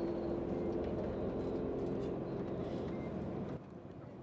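Tour bus engine and road noise heard from inside the bus cabin: a steady hum over a low rumble, which drops abruptly to a quieter background about three and a half seconds in.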